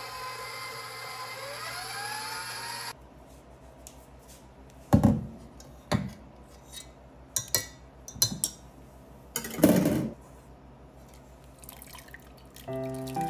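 Stand mixer running steadily under a towel, churning cream into butter; it stops abruptly after about three seconds. Then come several sharp knocks of the metal whisk attachment against the steel mixing bowl, and buttermilk dripping and splashing as the butter is lifted out. Music begins near the end.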